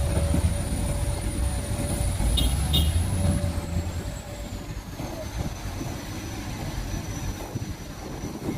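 Heavy diesel engine working hard in deep mud, a deep rumble that eases off about four seconds in while a high whine above it drops in pitch. Two short sharp clicks sound just before the easing.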